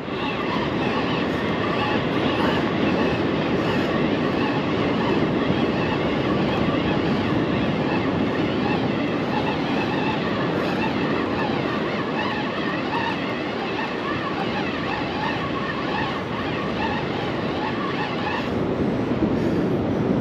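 Steady rush of surf on a beach with a fishing reel winding in a heavily loaded line, a faint whine running over the rush.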